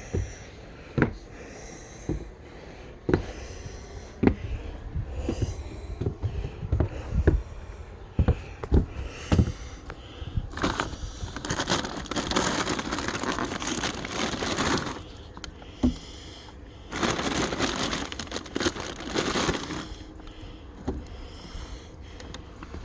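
Handling noise from a phone carried in a pocket while walking: dull thumps about once a second with each step, then two long stretches of fabric rubbing and scraping over the microphone.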